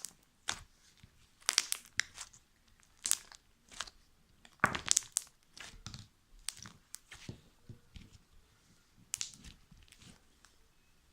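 Slime being stretched and pulled by hand, giving off irregular sticky crackles and snaps, loudest in a cluster about five seconds in.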